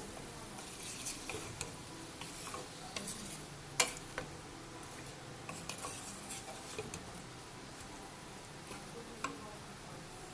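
Spoon stirring in a cooking pot, with irregular clinks and scrapes of metal on the pan over a faint steady hiss. The sharpest clink comes about four seconds in.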